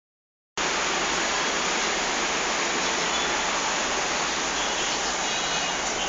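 A steady, even rushing noise, starting abruptly about half a second in, with a few faint high chirps past the middle. The dog in the crate does not bark.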